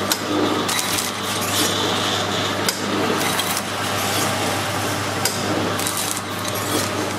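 Automatic liquid packing machines running: a steady motor hum under a hiss of machinery, with sharp mechanical clicks every couple of seconds and lighter clatter from the sealing and cutting cycle.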